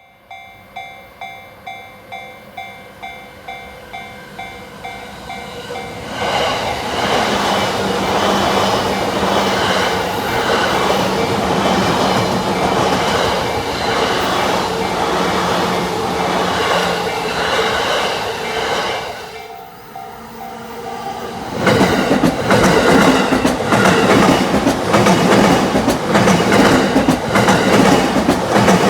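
A level crossing warning bell rings about twice a second. A Yamanote Line electric train then passes, its wheels clattering rhythmically over the rail joints. After a short lull in which the bell is heard again, a second train passes, louder.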